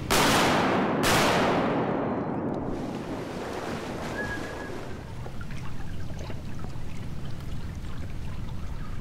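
Two shotgun shots about a second apart, each fading with a long echo through the flooded timber, followed by a retriever splashing and wading through shallow water.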